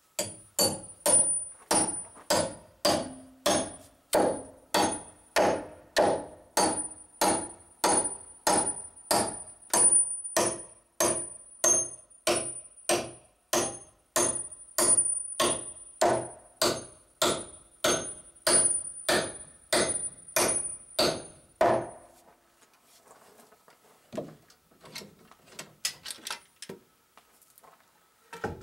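Hammer blows on a steel tool held against a timber door-frame post, metal on metal with a high ring. About two blows a second for some twenty seconds, then they stop, leaving faint handling knocks and one louder knock near the end.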